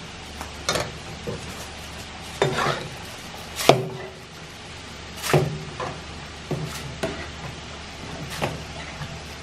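A metal ladle scooping tteokbokki out of a large pan of simmering sauce, clinking and scraping against the pan and its rim about nine times at an uneven pace. The loudest knock comes about midway.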